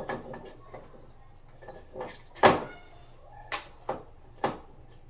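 A handful of sharp knocks and clacks of hard objects, about five, the loudest about two and a half seconds in.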